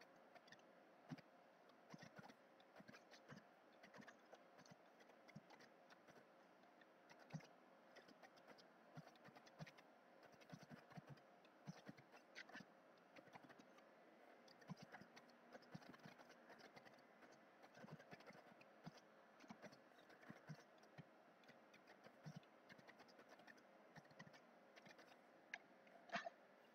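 Faint computer keyboard typing: irregular, quiet key clicks, a few a second, with a slightly louder pair of clicks near the end.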